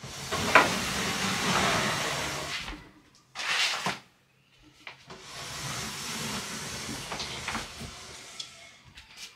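Legs of a small desk scraping across a wooden floor as it is pushed along: a long drag, a short one about three seconds in, then another long drag with a few knocks.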